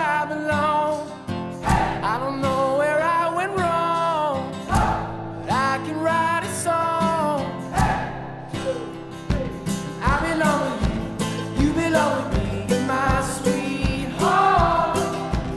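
Background music: a song with a voice singing over guitar and a steady beat.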